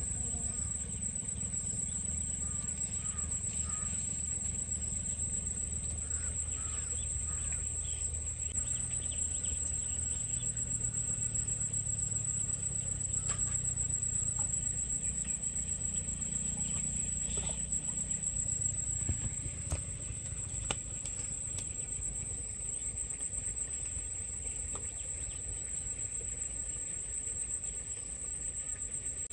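Insects trilling in a continuous high-pitched chorus, over a low rumble, with a few faint clicks past the middle.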